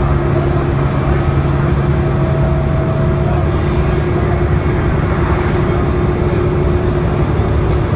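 Cabin sound of a 1998 New Flyer D40LF transit bus cruising at a steady speed. Its Cummins ISC six-cylinder diesel and Allison B400R automatic transmission give a constant drone over road and tyre noise, with no shifts or changes in pitch.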